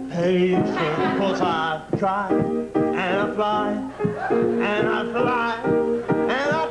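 A man singing in a wavering, sliding voice over repeated piano chords.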